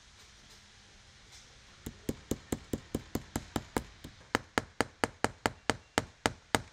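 Hammer tapping a decorative nail head through a pre-spaced hole in nailhead trim into an upholstered chair. A quick, even run of taps, about four to five a second, starts about two seconds in and pauses briefly a little past the middle.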